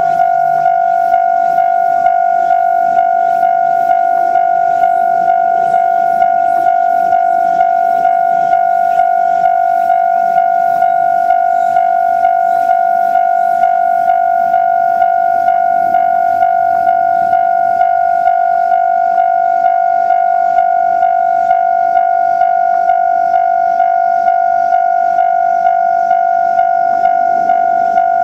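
Japanese level-crossing warning alarm ringing steadily in an even, fast ding-ding rhythm, signalling that a train is approaching. A faint low rumble sits underneath.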